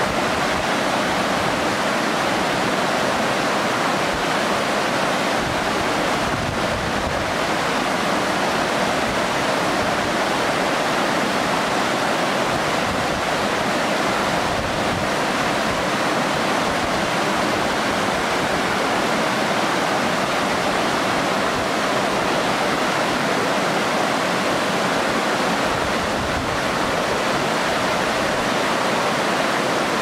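Waterfall crashing into its rocky pool, with a shallow stream rushing over stones in front. A steady, even rush of water that does not change.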